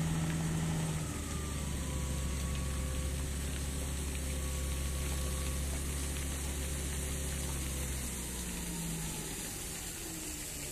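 Diesel engine of a truck-mounted concrete boom pump running steadily with a low hum. Its note shifts down and gets slightly quieter around eight seconds in.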